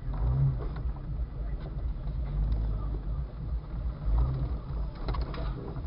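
Jeep Cherokee XJ engine running, heard from inside the cabin as a low rumble that swells and eases while the Jeep is worked slowly over rough trail.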